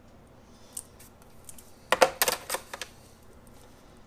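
Small clicks and light knocks of drafting tools being handled on a drawing board as a compass and a felt marker are picked up: a few light ticks, then a quick cluster of sharper clicks about two seconds in.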